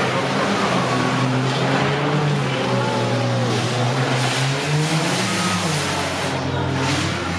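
Engines of banger-racing cars circling the track, a steady drone in which one engine's pitch rises and falls a little past the middle.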